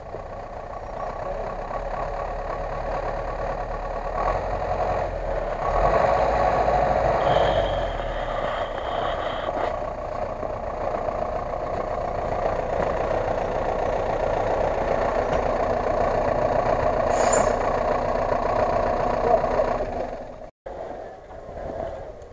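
GAZ-66 truck's engine running steadily under load as it is pulled by a tow cable out of deep mud, with a heavier low rumble in the first several seconds. About twenty seconds in the sound breaks off abruptly, and a quieter engine follows.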